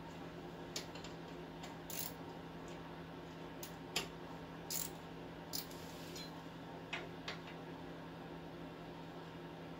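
Hand tools working on metal: about eight short, sharp metallic clicks and clinks at irregular intervals, the loudest about four seconds in, over a steady low hum.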